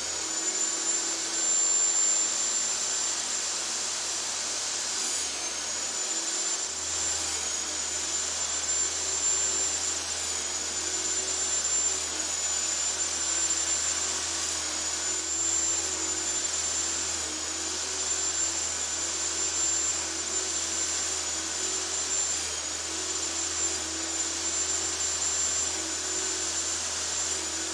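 A power tool running steadily with a high whine while cutting dados into maple boards; the whine dips briefly in pitch a few times as the cutter takes the wood.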